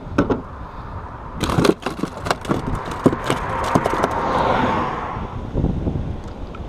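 Knocks, clicks and scrapes of plastic fishing gear being handled against a concrete bridge wall, clustered in the first half. Around the middle a rush of noise swells and fades.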